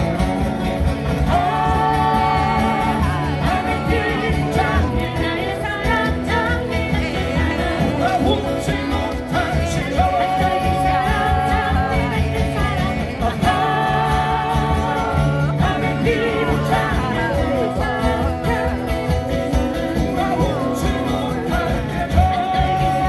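A singer performing live with a guitar ensemble accompaniment.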